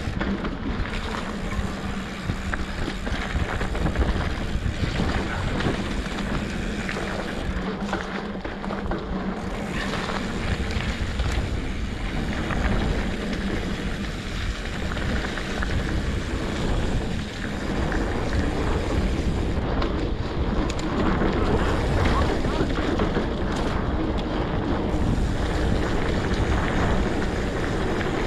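Wind rushing over the microphone during a ride, a steady buffeting with a low rumble underneath and a faint steady hum.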